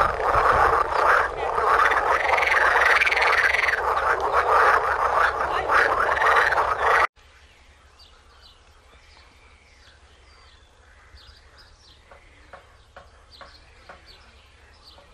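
A dense chorus of frogs croaking from a pond, cutting off abruptly about seven seconds in. After that only faint short chirps and clicks remain.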